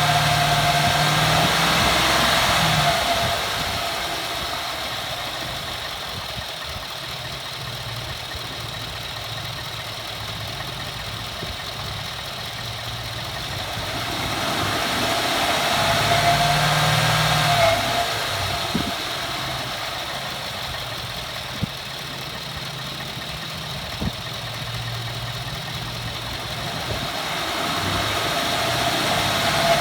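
Ford F-150's engine, hood open, revved three times and dropping back to idle between revs. While it is revved, a high wavering squeal rides over the engine: the grinding, nails-on-a-chalkboard noise the truck makes under acceleration, which at first came only with a cold engine. Two short clicks come during the idle after the second rev.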